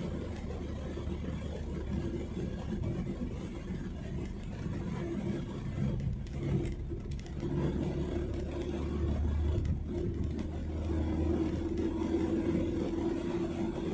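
Cabin noise of a car cruising on a smooth highway: steady engine and tyre rumble with a low hum that grows a little louder in the second half.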